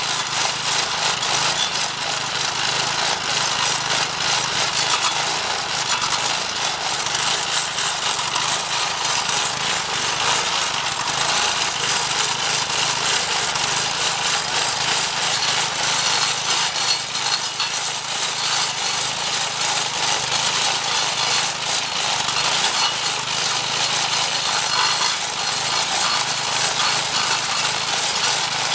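A Briggs & Stratton 4.5 hp vertical-shaft engine on a converted lawn edger runs steadily under load, driving a 10-inch carbide-tipped saw blade that grinds continuously into a mulberry stump.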